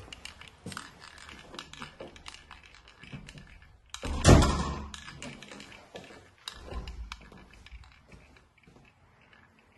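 Scattered small clicks and knocks from walking and handling a handheld camera in an empty, echoing room, with one loud thump about four seconds in and a softer one a couple of seconds later.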